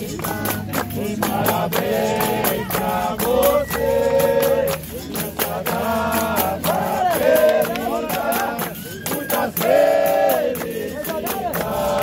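Capoeira roda music: a group of voices singing together over hand clapping and a steady beat from pandeiros, berimbau and atabaque drum.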